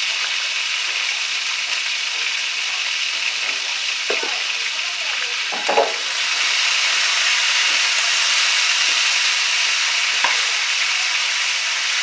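Catfish nuggets frying in melted butter in a pan: a steady sizzle that grows louder about halfway through, with a few light knocks.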